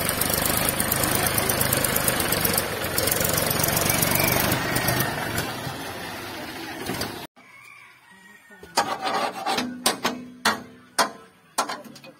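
Mahindra 275 DI Eco tractor's three-cylinder diesel engine running hard under load, trying to pull free of mud, loud and rough. About seven seconds in the sound cuts off abruptly to a much quieter background with several sharp clicks.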